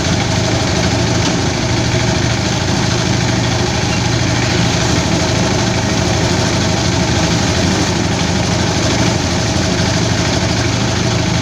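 Engine-driven rice threshing machine running steadily, its engine hum mixed with the dense rushing noise of the threshing drum.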